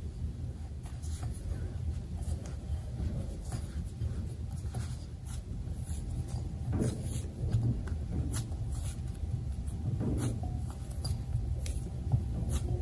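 Food-preparation handling sounds: scattered light clicks, taps and scrapes of utensils and hands, over a steady low hum.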